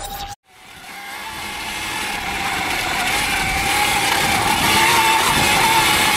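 Electric dirt bike's motor whining while riding, its pitch wavering up and down with speed, over a broad hiss of wind and trail noise. The sound fades in after a brief dropout about half a second in.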